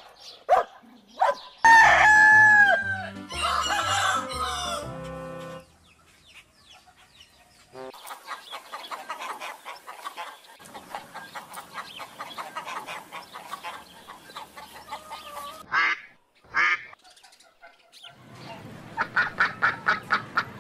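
Chicken sounds: a rooster crowing and hens clucking in a long dense run through the middle, mixed near the start with a few seconds of music-like electronic tones.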